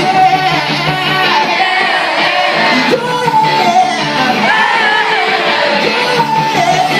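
Live pop-rock band playing with singing, heard from the audience in a large concert hall, with very little bass.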